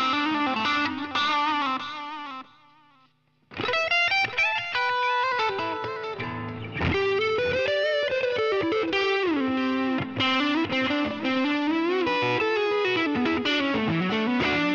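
Fender American Professional Stratocaster HH (Shawbucker pickups) electric guitar played through a Line 6 Helix Floor amp modeler with effects: single-note lead lines with bends and slides. The playing stops for about a second about two and a half seconds in, then resumes.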